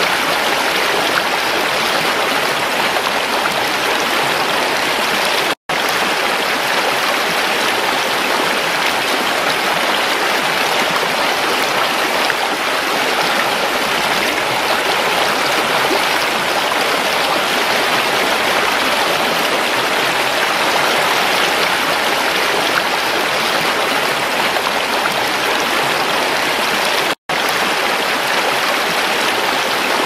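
Shallow mountain creek rushing over rocks: a steady, loud water noise, broken twice by a split-second silent dropout, about five seconds in and near the end.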